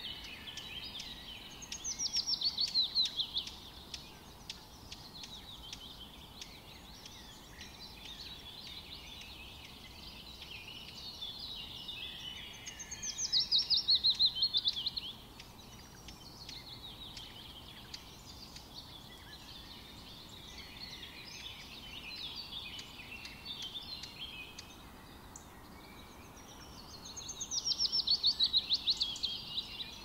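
Songbirds singing. One bird gives a loud, fast song of quick notes sliding down in pitch three times, each lasting about two seconds, roughly every twelve seconds. Quieter chirps from other birds fill the gaps between.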